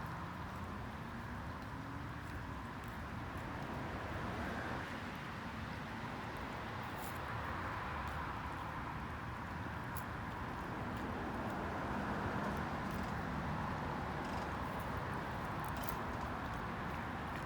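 Steady outdoor background noise of distant traffic, with a faint rising engine tone at the start and a few faint clicks scattered through.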